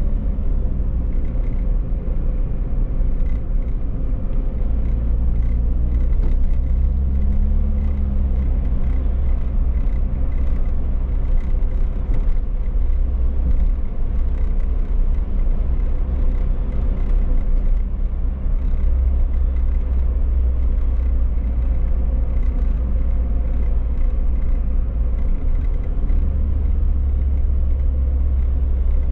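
A car driving: steady low rumble of engine and road noise, with the engine note rising and falling a little, briefly rising about seven seconds in.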